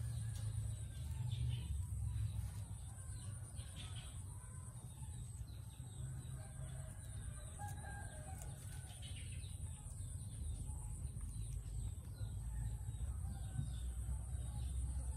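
Chickens clucking now and then over a steady high-pitched whine.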